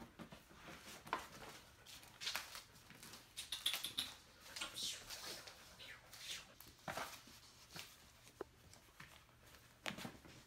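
Faint, irregular rustling and scraping as a cat's plastic cone (e-collar) rubs and bumps against a rug and hardwood floor, with soft paw taps and a dog sniffing. A slightly louder scuff comes near the end.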